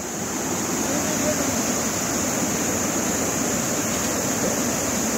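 Steady rush of flowing water, an even, unbroken noise like a nearby mountain stream or river.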